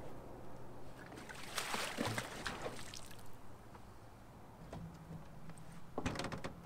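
Water sloshing and splashing briefly about two seconds in. Near the end comes a quick rattle of clicks as a fishing rod is cast.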